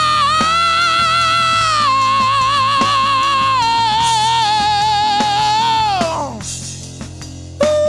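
Isolated lead vocal of a male rock singer holding a long, high, wordless note with a wide vibrato. The note steps down in pitch a couple of times, then slides off and fades about six seconds in. A new high note starts just before the end.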